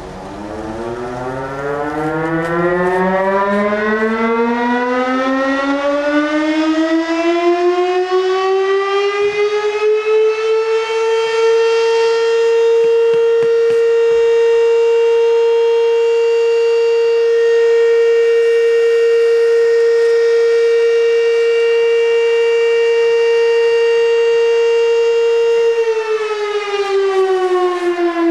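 Fire station siren winding up from a low growl to a steady high wail over about ten seconds, holding that pitch, then starting to wind down near the end. It is the alarm calling out the volunteer firefighters.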